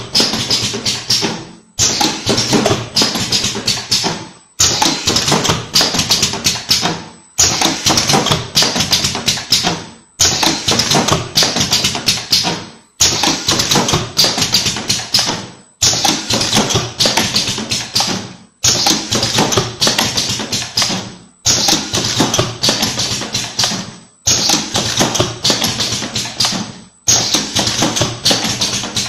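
Rhythmic background music built on dense, rapid percussive tapping, in identical phrases about three seconds long. Each phrase starts sharply and fades into a brief silence before the next.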